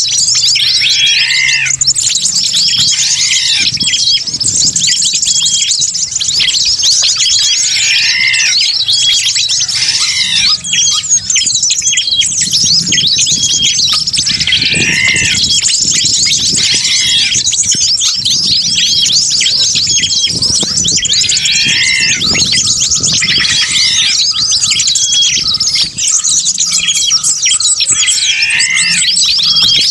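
A bird-lure recording: a dense chorus of many wild birds chirping and squawking at once. A continuous chatter of high chirps runs under louder falling calls that recur every few seconds.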